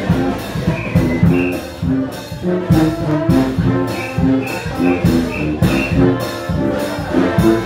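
A New Orleans second-line brass band playing live jazz: a sousaphone carrying the bass under the horns, with drums keeping a steady beat.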